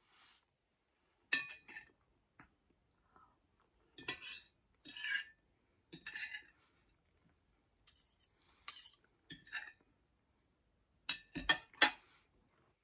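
Metal knife and fork scraping and clinking on a ceramic dinner plate in short, scattered strokes as the last scraps of food are gathered up. Near the end comes a quick run of sharper clinks as the cutlery is laid down on the plate.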